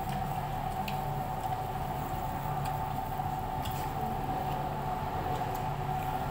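Wet squishing of a whole grilled chicken being pulled apart with plastic-gloved hands and chewed, with a few small clicks. A steady high-pitched hum runs underneath.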